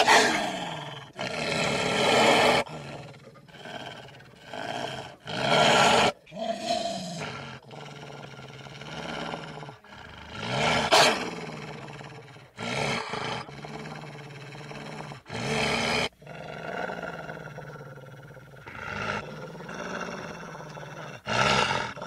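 A string of animal growls and roars put together from hyena and wolf sound effects as a brown hyena's voice. About a dozen separate calls, several cut off abruptly, some with a pitch that sags and rises again; the loudest at the very start and about eleven seconds in.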